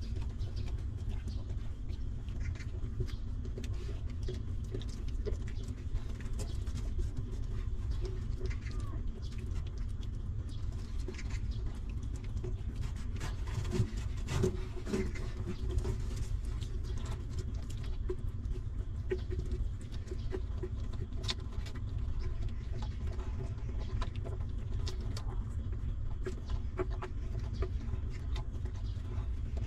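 Newborn puppies suckling at their mother dog's teats: many small wet clicks and smacks with occasional short squeaks, over a steady low rumble.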